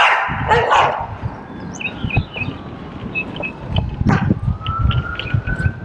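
Birds chirping over the low rumble of wind and road noise on a moving bicycle's camera, with a distant siren wailing slowly up and down in the second half. A short rush of noise comes right at the start.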